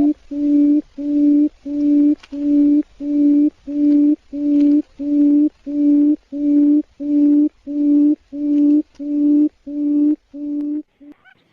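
Quail calling: a low hooting note repeated evenly, about twice a second, that stops shortly before the end.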